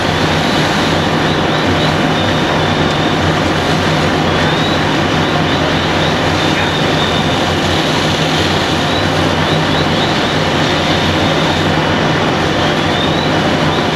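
Fire engine's diesel engine running its pump, a loud steady drone with a low hum, under the hiss of hose streams spraying onto a vehicle fire.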